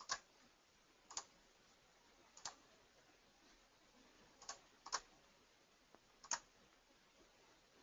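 Computer mouse button clicking about six times at uneven intervals against near silence.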